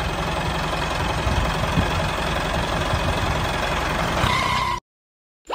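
Tractor engine running steadily, a low even rumble, which cuts off abruptly near the end just after a brief high tone.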